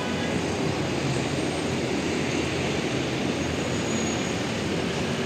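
Steady outdoor town noise: the even hum of distant traffic.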